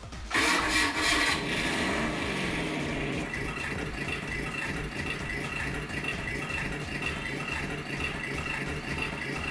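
Engine sound effect from the Mattel Ultimate Batmobile R/C toy's speaker as it is switched on: a sudden start-up rev with a falling sweep in pitch, settling into a steady idling rumble.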